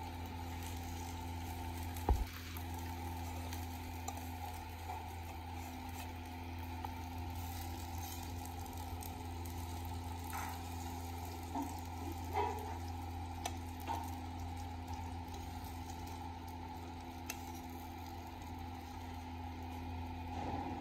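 Fish pieces frying on an oiled iron tawa, a steady sizzle, with scattered clicks of metal tongs as pieces are lifted onto a plate; one sharp knock about two seconds in is the loudest sound.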